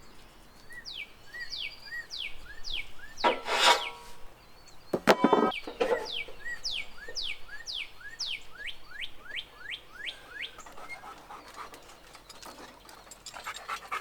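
A bird singing a fast series of short chirps that sweep downward, about two a second. Two louder metal clanks with a brief ring break in, one a little after three seconds in and one about five seconds in.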